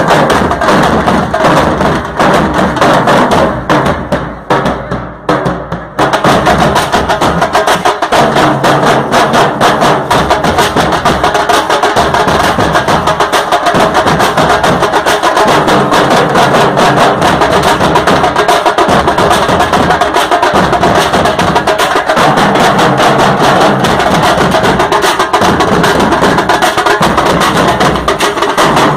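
Nasik dhol band drumming loudly: large steel-shelled drums and smaller snare-style drums beaten with sticks in a fast, dense rhythm. The playing thins and drops briefly about four seconds in, then the full band comes back in about six seconds in.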